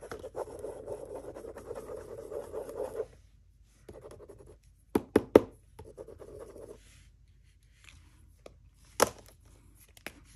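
Sakura Gelly Roll Metallic gel pen scribbling on paper, a continuous scratchy rasp for about three seconds, then two shorter bursts of scribbling. Between and after them come several sharp clicks and taps as pen caps are pulled off and pens are put down.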